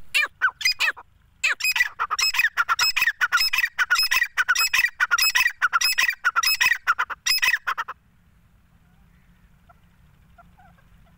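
Grey francolin calling: a loud, fast run of harsh, repeated calls with a short pause about a second in, stopping abruptly about eight seconds in.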